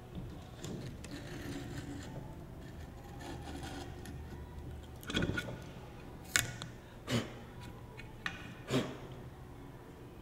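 Hands working griptape on a scooter deck: a utility knife scraping and cutting along the deck edge and the grip being rubbed down, with several sharp knocks in the second half.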